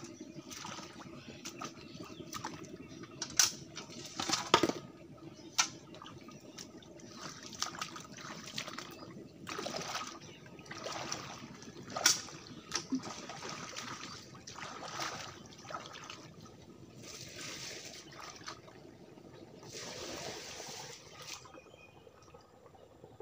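Lime mixed with water thrown from a bucket onto a pond: a series of splashes and pouring sounds as the mix hits the water, with a few sharp knocks near the start and once in the middle.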